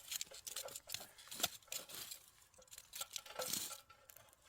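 Lumps of burnt charcoal clinking and knocking as they are laid and spread over the bottom of a fire can, in scattered light clicks.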